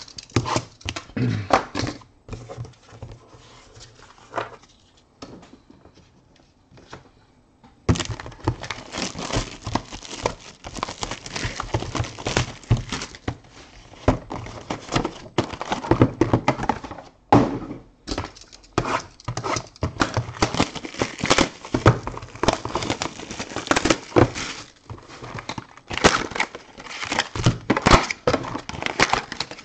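Trading-card box and sealed card packs being handled: packaging crinkling and rustling with light thunks. It is fairly quiet at first, then from about a quarter of the way in a busy, continuous crackle of wrappers and cardboard.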